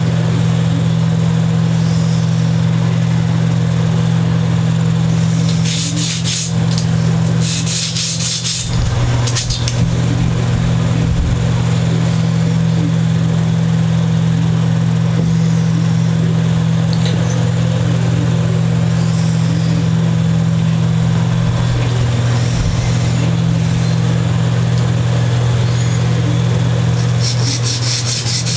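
Sanding block rubbed back and forth on wood, taking off material in short runs of quick strokes, a few seconds apart. A steady low hum runs underneath throughout.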